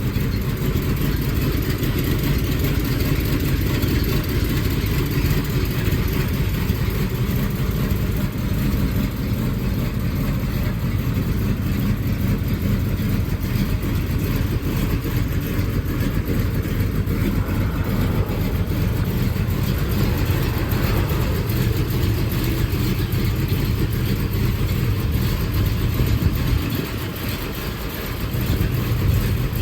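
1979 Dodge Lil Red Express's 360 V8 running steadily as it warms up after a cold start, its sound dipping briefly near the end.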